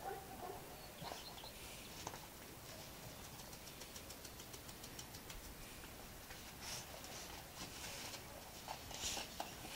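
Two small dogs play-wrestling: faint scuffling of paws on the mat and tiles, with a brief whine at the start and a run of quick light ticks, like claws clicking, about three seconds in.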